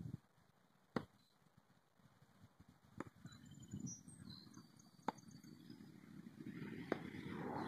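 Thrown blades striking a wooden target board: four sharp knocks about two seconds apart. A low rushing noise builds near the end.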